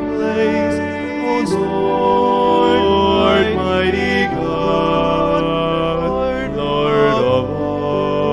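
A man singing a slow hymn in long held notes over a sustained accompaniment.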